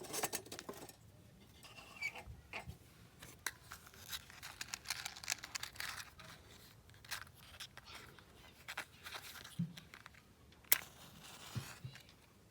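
Rustling and crinkling as gear or bags are handled, with many short scrapes and clicks and one sharp click near the end.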